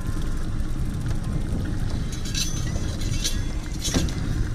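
Hooked lake trout being played to a landing net at the side of a boat: a few short, sharp splashes and a clink in the second half, the sharpest near the end, over a steady low rumble.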